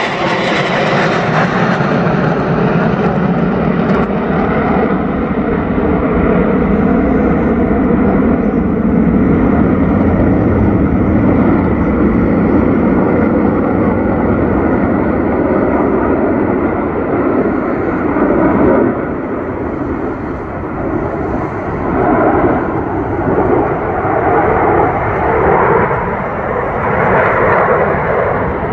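Loud, steady jet noise from a formation of six twin-engine Sukhoi fighters flying overhead, with a faint whine on top. It dips for a moment about two-thirds through, then swells and fades in waves near the end.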